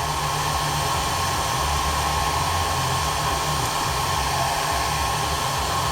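Hair dryer running steadily, blowing hot air to soften the plastic of action figures: an even rush of air with a constant whine.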